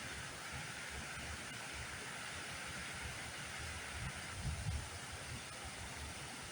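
Steady rush of flowing water, with low wind buffeting on the microphone about four seconds in.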